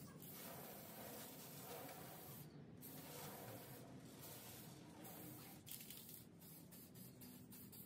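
Faint hiss of an aerosol spray can sprayed in short bursts, with a brief break about two and a half seconds in.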